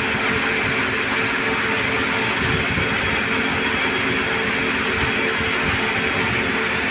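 CNC lathe running steadily while turning a pin: an even machine whir with a few steady hum tones.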